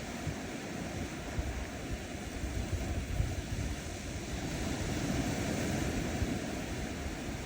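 Small ocean waves washing onto a sandy beach: a steady rush of surf that swells a little about five seconds in, with low wind buffeting on the microphone.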